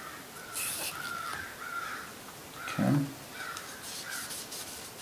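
A shop cloth rubbing and scrubbing on an AR-15 charging handle as it is wiped clean of carbon gunk. It makes rasping swishes with short squeaks. A dull thump comes just under three seconds in.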